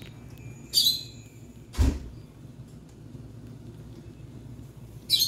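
Hedgehogs moving and eating in a tank of wood shavings: two short scratchy rustles, about a second in and near the end, and one dull thump at about two seconds, over a steady low hum.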